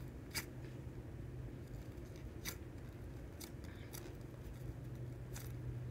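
Hands squeezing a soft foam pineapple squishy toy: faint handling noise with about five short, sharp clicks spread through it, over a steady low hum.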